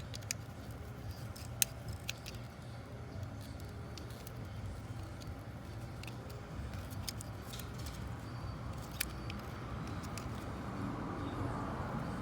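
A few scattered sharp clicks and taps of a screwdriver and plastic parts as the locking piece is pried out of the TIPM wiring connector, over a steady low background hum.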